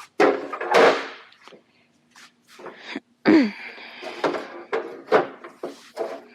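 A broom sweeping a floor: a run of short scrapes and knocks, uneven in loudness, with a sharp knock about three seconds in.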